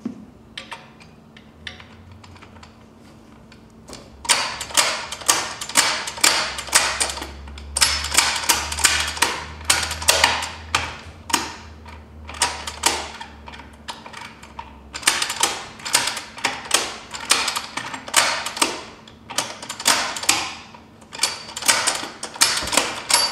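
Quaife sequential gearbox being shifted by hand through its gears with a test lever: runs of sharp metallic clicks and clacks as the selector cam drum turns against its spring-loaded detent and the gears engage, starting about four seconds in.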